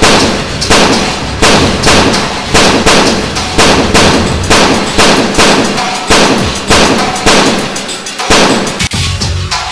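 Gunfire: a steady string of single gunshots, about three every two seconds, from shotgun and handgun firing in turn.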